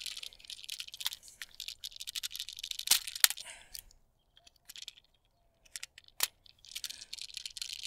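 Wheeler torque screwdriver tightening the terminal screw of a circuit breaker: fast runs of fine ticking with a few sharper clicks, a short pause of about a second and a half past the middle, then more ticking near the end.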